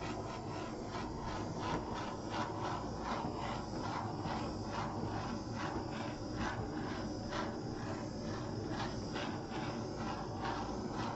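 Small handheld torch hissing steadily as its flame is passed over wet acrylic pour paint, with faint irregular ticks, about two or three a second, running through the hiss.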